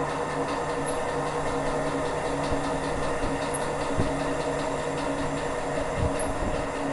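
Centrifugal fan running steadily during dynamic balancing: a steady hum with several held tones over an even rushing noise, and a few brief low thumps in the second half.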